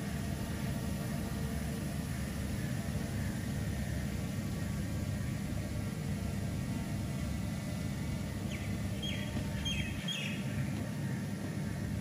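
Steady low outdoor rumble with a few short, high bird chirps about nine to ten seconds in.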